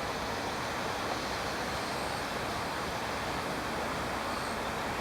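Nankai limited express 'Southern' train running past at close range, a steady rushing, rolling noise that holds without change.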